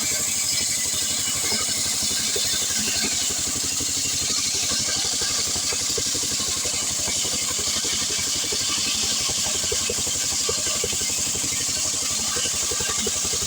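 Stihl 070 two-stroke chainsaw running steadily at a constant pitch, with a bright high hiss over the engine note.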